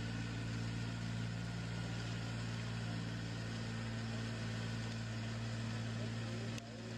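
Kubota tractor's diesel engine running steadily under load with a rotary tiller working the soil, a constant low hum. A single click comes near the end.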